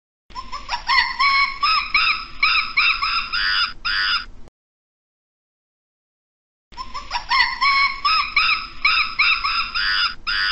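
Primate calls: a rising opening note followed by a quick series of repeated pitched notes, about two to three a second, lasting about four seconds. The same recording plays again after a pause of about two seconds.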